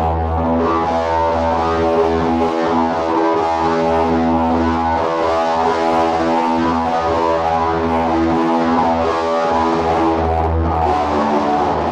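Instrumental background music with sustained notes over a steady bass line.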